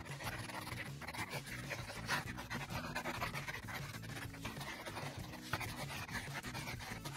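Thick-tipped permanent marker rubbing and scratching across paper in short, uneven strokes as an outline is inked.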